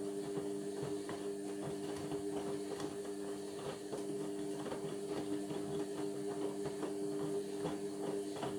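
Indesit washing machine running mid-cycle on its Cotton 60 programme: a steady motor hum with frequent light clicks and knocks.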